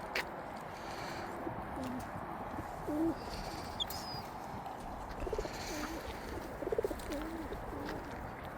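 Feral pigeons cooing: short, low, wavering coos repeated throughout, from several birds, over a steady outdoor hiss.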